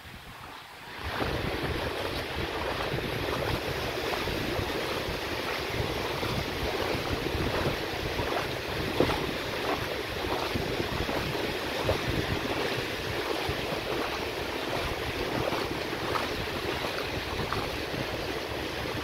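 Surf washing onto a beach, with wind buffeting the microphone; the sound comes in abruptly about a second in and then stays steady.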